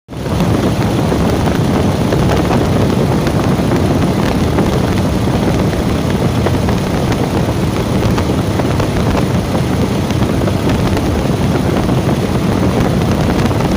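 Paccar MX-13 inline-six diesel engine running steadily and loudly, with a newly replaced fan idler pulley.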